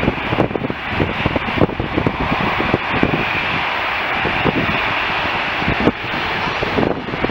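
Jet airliner engine noise, a steady loud rush with a hissing band that is strongest in the middle seconds, mixed with wind buffeting the microphone.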